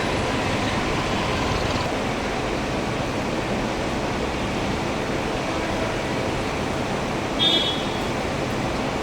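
Steady rumbling noise of a passenger train and station, with no horn sounding, and a brief high-pitched squeal about seven and a half seconds in.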